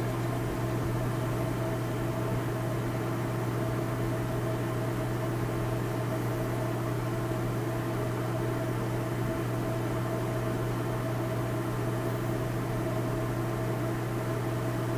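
A steady mechanical hum with a strong low tone and a few fainter higher tones over a light hiss, unchanging throughout.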